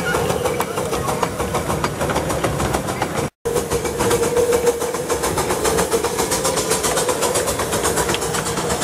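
A 7¼-inch gauge miniature steam locomotive, the South African Railways-style 2-6-2 "Zeus", running past with its passenger train: rapid clicking of wheels on the rails over a steady running noise. The sound cuts out for an instant about a third of the way in and then carries on.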